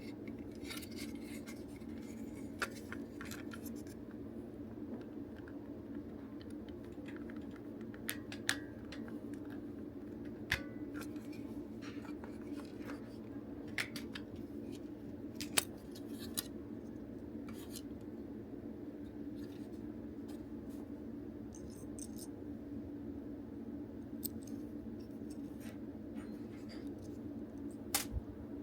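Scattered small clicks and scrapes of the plastic toy belt's parts being handled during disassembly, a few sharp ticks standing out, over a steady low hum.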